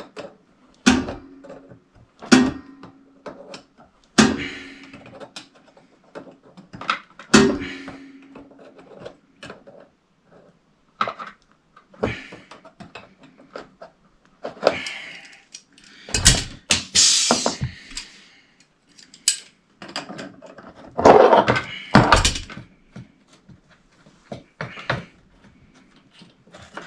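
Metal hand tools knocking and clattering as they are handled in a plastic tool tray. Several knocks in the first eight seconds ring on briefly, and there are louder bursts of clattering about two thirds of the way through.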